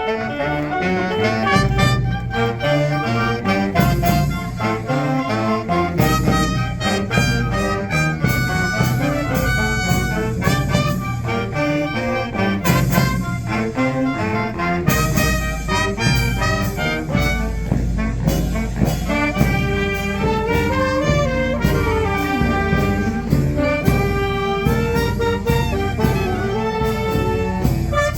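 Brass fanfare band playing a lively tune: brass melody over a steady drum beat.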